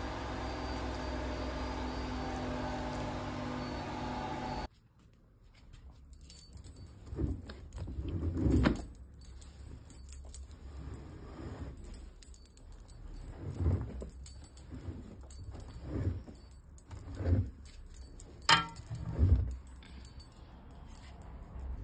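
Laundry being pulled out of a front-loading washing machine into a plastic basket: cloth rustling, with scattered knocks and clinks against the drum and basket. Before it, for about the first five seconds, a steady even sound that cuts off suddenly.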